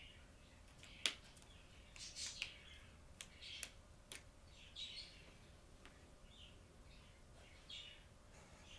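Felt-tip markers being handled and used on a paper chart: a few sharp clicks, the loudest about a second in, and short squeaky, scratchy strokes of a marker tip on the paper.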